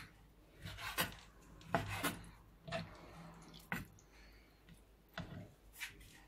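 Quiet, irregular light knocks and scraping rubs, about eight sharp ones spread over six seconds.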